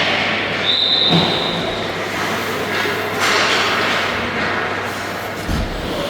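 Steady rumbling game noise from a youth team scrimmage, with a short high whistle blast about a second in and a low thump near the end.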